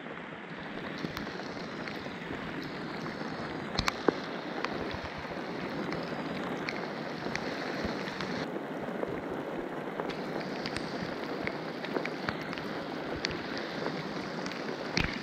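Steady rain falling on the lake surface around a kayak, with scattered sharp taps of nearby drops.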